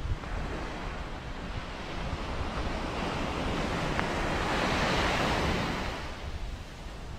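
Sea waves breaking and washing up a sandy beach, swelling to a peak about five seconds in and then easing off, with wind rumbling on the microphone.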